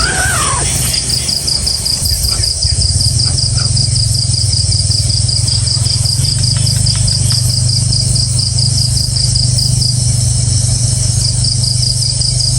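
Insects calling: a rapid, even high pulsing chirr that pauses briefly near the end, with a steady higher hiss behind it. A steady low hum runs underneath.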